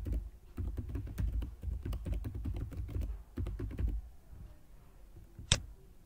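Typing on a computer keyboard: a quick run of keystrokes for about four seconds, then a pause and one sharp, louder click near the end.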